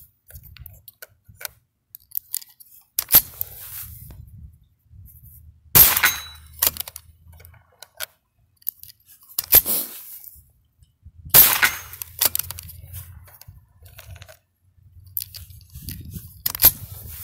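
About three sharp shots from a Ruger 10/22 .22 LR rifle firing 36-grain CCI hollow points, several seconds apart, with lighter metallic clicks of the action being worked and a new round loaded in between. A low wind rumble on the microphone fills the gaps.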